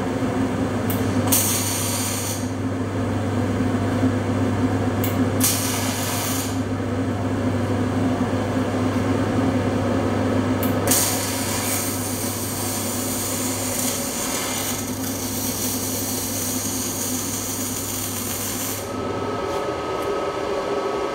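MIG/MAG welding arc crackling in bursts: two short tack welds about a second each, then a longer weld run of about eight seconds, over a steady low hum.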